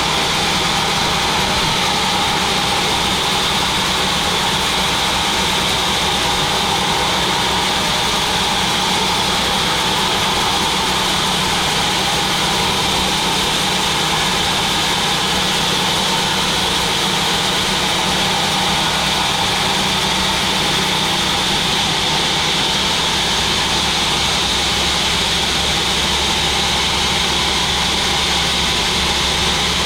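Sawmill machine running steadily, an even mechanical noise with a high whine over it and no break or change.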